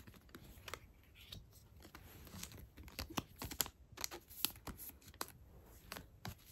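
Faint, irregular clicks and light rustling of photocards and thin plastic sleeves being handled, slid apart and set down on carpet.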